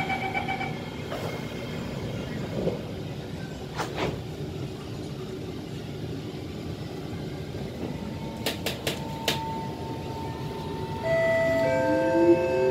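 Kawasaki C151 metro train: the door-closing chime beeps briefly at the start, the doors shut with a knock, and after a few sharp clicks the traction motors start up with steady tones and a rising whine as the train pulls away. A constant rumble of the car underlies it all.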